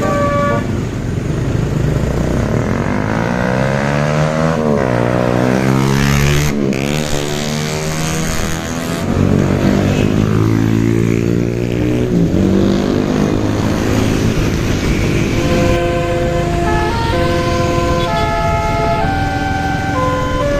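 Basuri telolet bus horns playing: a melody of held notes stepping from pitch to pitch. Over the middle stretch they change to siren-like tones swooping up and down, and the stepped melody returns about three quarters of the way in.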